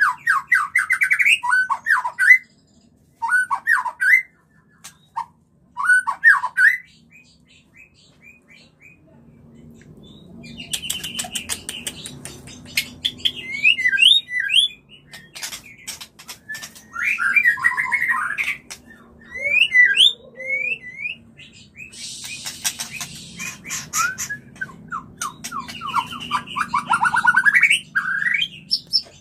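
White-rumped shamas giving their mating calls: short phrases of fast trilled notes sweeping quickly up and down, mixed with rapid clicking rattles. A few short bursts come first, then a pause of a few seconds, then longer, almost unbroken calling over a low hum.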